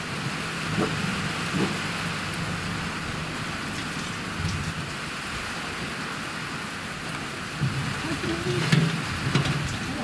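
Steady rain hissing and pattering on the ground and a car, with a few faint clicks and a brief voice near the end.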